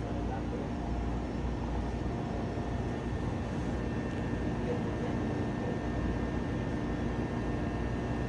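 Steady low rumble and hum of café machinery, with a few faint steady tones over it and no distinct pouring sound.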